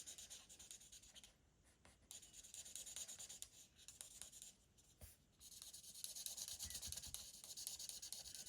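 Faint scratching of a Stampin' Blends alcohol marker nib stroking across cardstock while colouring in a stamped branch, becoming steadier and a little louder about halfway through.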